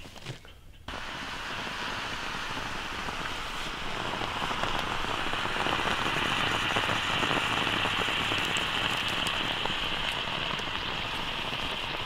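Steady rushing hiss of water, such as rain or a mountain stream, cutting in suddenly about a second in and growing louder a few seconds later.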